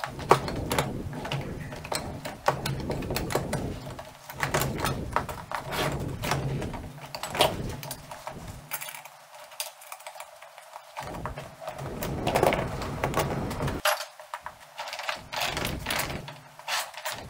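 Irregular metal clanks and rattles from a homemade steel crawler track and its toothed sprocket wheels being handled and fitted together.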